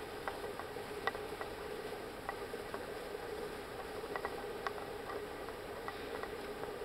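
Faint, irregular clicks and crunches of footsteps and small hooves on frozen, icy ground, over a steady hiss.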